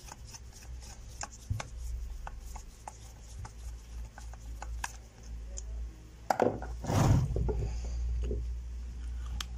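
Small clicks and knocks of metal and plastic as an electric motor's terminal block is worked loose and lifted out of its terminal box, with a louder scraping rub about six to seven seconds in.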